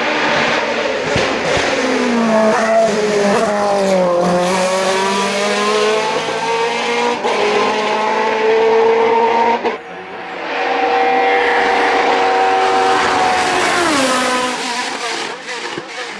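Hill-climb racing car engine at full attack. Its pitch falls about four seconds in, then climbs again through sharp gear changes, holds high for a few seconds, and drops near the end.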